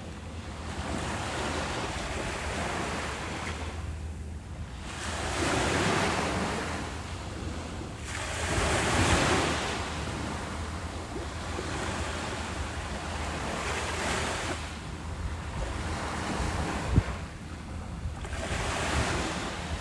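Ocean waves washing in, the surf noise swelling and falling in surges every few seconds, over a low rumble of wind on the microphone. A single brief knock sounds near the end.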